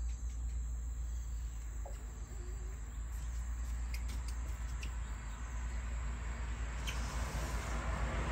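Quiet background with a steady low hum and faint insect-like chirps. A newborn puppy gives a faint brief squeak about two seconds in.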